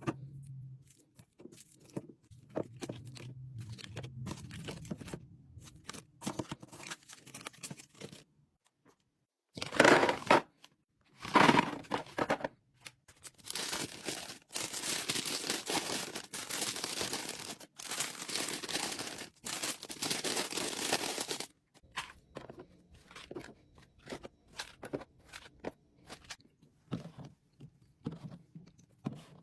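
Plastic packaging being torn open and crinkled, with light clicks and knocks as items are handled. There are two loud tearing bursts about ten seconds in, then a long stretch of steady crinkling broken by short pauses.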